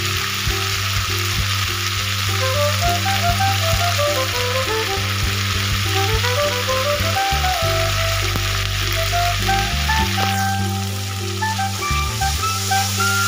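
Hot oil with cumin seeds sizzling in a kadhai as turmeric powder is spooned in and stirred with a slotted spoon; the sizzle eases a little about ten seconds in. Background music with a melody and bass line plays over it.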